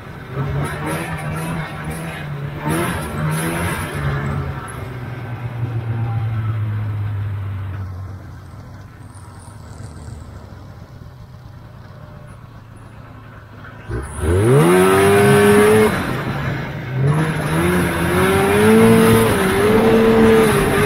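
A vintage Polaris snowmobile's two-stroke engine running out on a ride, its pitch rising and falling. It goes quieter for several seconds midway. About 14 s in it revs sharply up and holds at high speed, easing briefly before climbing again.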